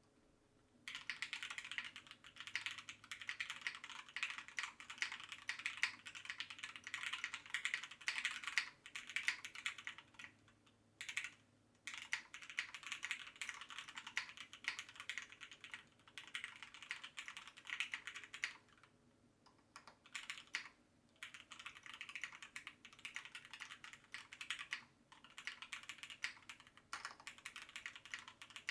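Typing on a Tofu 60 mechanical keyboard with Gateron Milky Yellow linear switches, lubed and filmed, on a full aluminium plate with case foam. Fast, continuous keystroke clacks start about a second in and break off in a few short pauses.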